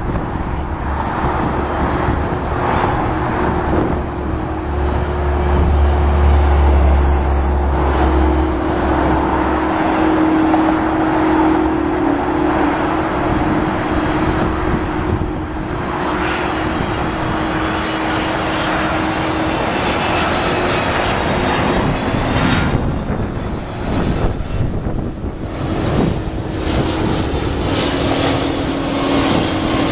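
GE CF6-80C2 turbofan engines of a FedEx Boeing 767-300F freighter on final approach, a steady jet noise with a held low hum.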